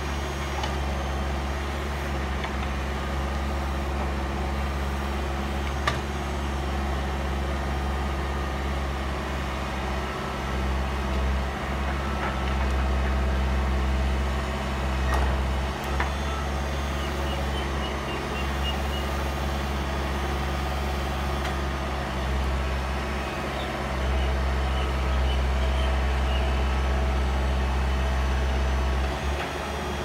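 Escorts backhoe loader's diesel engine running steadily while the backhoe arm digs and swings soil, getting louder under hydraulic load for a few seconds around the middle and again near the end. A couple of short clunks from the bucket and arm.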